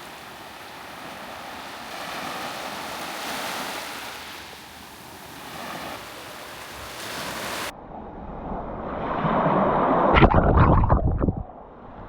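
Small waves breaking and washing up on a sandy beach, the surf swelling and easing. About two-thirds of the way through the sound cuts to a duller, louder rush. Near the end come heavy low rumbling buffets, the loudest part.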